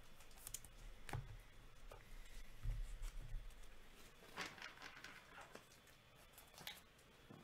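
Trading cards and their packaging being handled: scattered light clicks and taps, a couple of soft rustles, and a dull thump a little under three seconds in.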